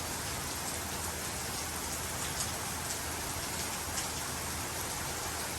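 Steady rain falling on surfaces, an even hiss with faint scattered drop ticks.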